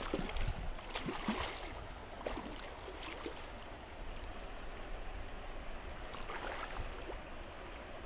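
Shallow stream water running over stones, with several splashes of a hooked brown trout thrashing at the surface beside a landing net, most of them in the first three seconds.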